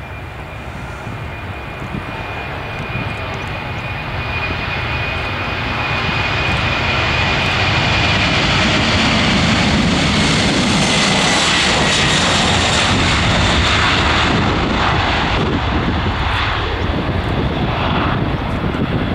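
Boeing 747-400's four GE CF6-80C2 turbofans at takeoff thrust during the takeoff roll, a steady jet roar growing louder as the aircraft approaches. A high fan whine drops in pitch as it passes, about ten seconds in, and the roar stays loud through the rest.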